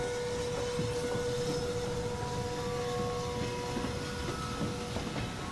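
Steam locomotive pulling into a station: a steady rumble and hiss, with long held tones over it.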